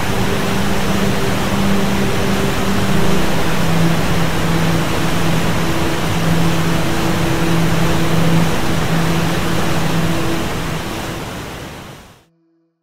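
A swollen river crashing over a waterfall into churning white water, a loud, steady rush of water noise, with faint held musical tones beneath. It fades out near the end.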